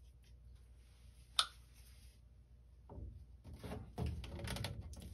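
A sharp plastic click, then from about three seconds in a run of knocks and scrapes as a 3/4-inch PVC pipe with an elbow is handled and pushed dry into its fitting.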